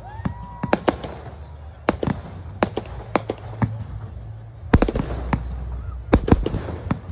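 Aerial firework shells bursting overhead: repeated sharp bangs and crackles in clusters about a second apart.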